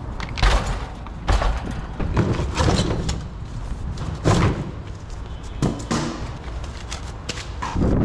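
Large cardboard shipping box being worked up and off a new air-conditioning condensing unit: a series of irregular thumps, knocks and cardboard scrapes, with wind rumbling on the microphone.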